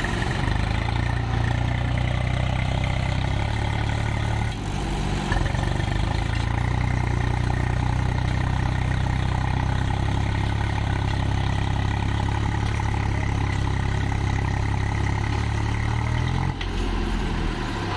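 Swaraj tractor diesel engines running hard while one tractor tows another, chained, out of deep sand. The engine note breaks briefly about four and a half seconds in and drops off near the end.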